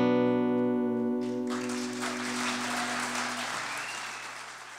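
Final chord of acoustic and electric guitars ringing out and dying away. About a second and a half in, audience applause starts and fades away near the end.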